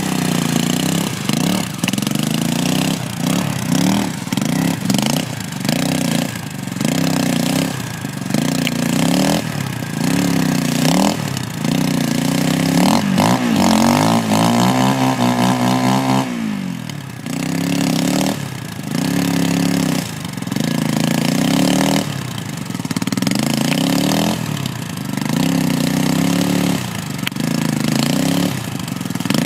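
Sport quad's engine revved in quick repeated blips, rising and falling roughly every three quarters of a second, as it spins its rear wheels in loose sand. About twelve seconds in it is held at high revs for some four seconds, its pitch wavering, then it drops back to more short blips.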